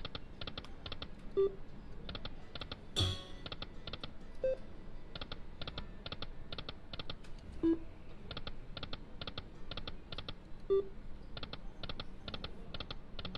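Lightning Link Sahara Gold slot machine running through spins: rapid runs of clicks as the reels spin and stop, with a short tone about every three seconds. A brief, louder burst of sound comes about three seconds in.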